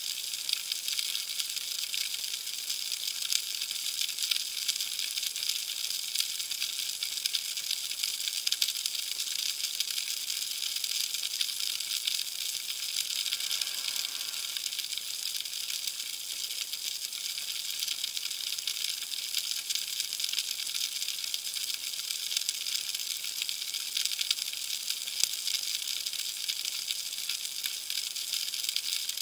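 Steady underwater crackling hiss picked up by a submerged camera, a dense run of fine clicks, with a faint whoosh about halfway through.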